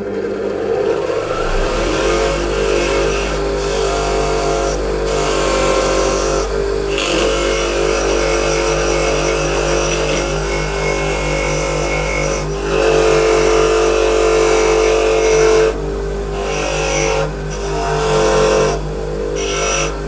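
Linishall BG8 8-inch bench grinder running with a steady motor hum while an old engine valve is pressed against its spinning wheel to strip off the carbon. The grinding scrape comes and goes, breaking off briefly several times as the valve is lifted and turned.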